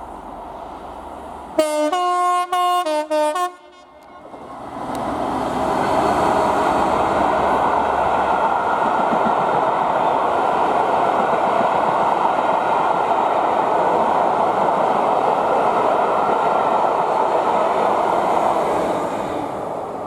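Train horn sounding a quick series of short blasts, followed by a passing train's steady rolling noise that swells in a few seconds later and holds, easing off near the end.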